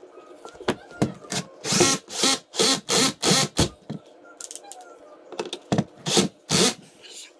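Cordless drill-driver driving a screw through a wooden ceiling molding in short bursts of the trigger: a quick run of about six bursts in the first half, then three more near the end, with small clicks and knocks between.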